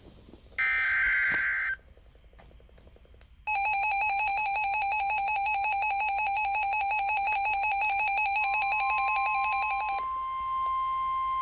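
Emergency Alert System signal: the last of the SAME header data bursts, a short harsh burst of digital tones, about half a second to two seconds in. After a short pause, the EAS attention signal sounds loud and steady from about three and a half seconds in; a second, single steady tone joins it near eight and a half seconds, and the attention signal cuts off about ten seconds in, leaving the single tone running.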